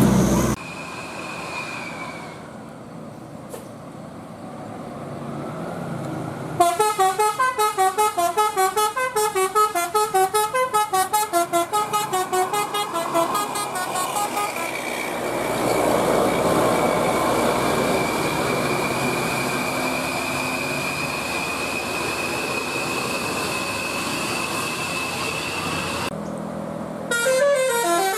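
Bus 'telolet Basuri' musical horn playing a fast, jumping melody of many short notes for about seven seconds, starting about six seconds in. Then a steady vehicle noise with a thin high whine, and another horn melody starts near the end.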